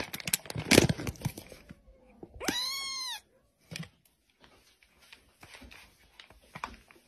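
A kitten meows once, a single arching call about two and a half seconds in. Crackling, clicking handling noise comes before it, and faint rustling follows.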